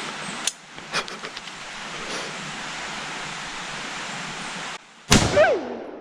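A single loud AR-15 rifle shot about five seconds in, followed by a falling whine. Before it, steady hiss and two sharp clicks.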